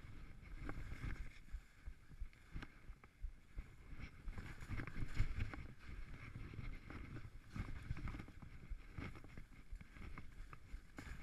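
Skis turning and scraping down a steep snow chute, with a hiss of sprayed and sliding snow that swells and fades unevenly with each turn, loudest about halfway through.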